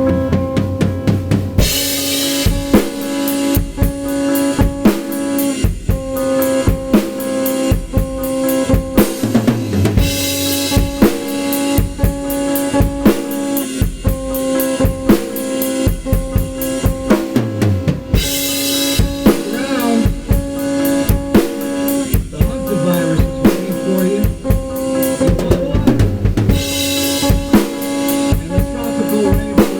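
Improvised drum kit playing on Gretsch and Ludwig drums with Paiste cymbals: busy bass drum, snare and rimshot strokes, with a cymbal crash about every eight seconds. Underneath, a looped guitar riff triggered from a sampling pad holds steady notes.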